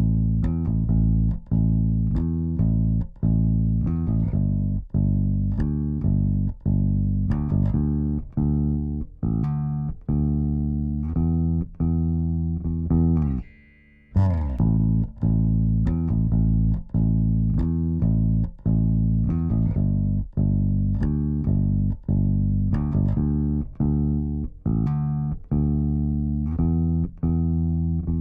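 Solo bass guitar playing a plucked riff, processed through a vari-mu tube compressor plugin. The phrase stops briefly about halfway through and then starts over.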